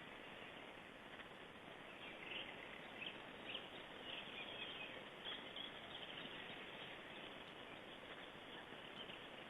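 Faint steady hiss of outdoor background noise, with short high chirps of small birds scattered through it, most of them between about two and six seconds in.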